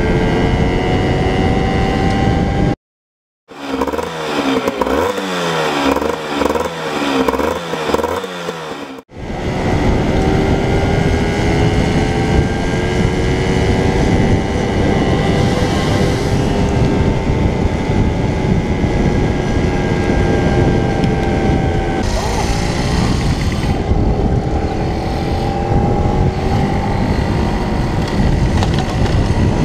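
50 cc motorcycle engine running under way, its note rising and falling with the throttle, over a steady rush of wind noise. About three seconds in the sound drops out briefly, then comes back for several seconds as a pulsing, uneven engine sound before the steady running note returns.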